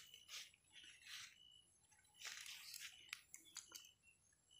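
Faint jungle bush quail calls: a series of short, harsh, hissing bursts with a few sharp clicks and brief high chirps.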